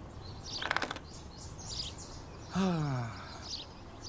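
Garden ambience of birds chirping, with a brief burst of rapid clicks under a second in. About two and a half seconds in, a man gives a low sigh that falls in pitch.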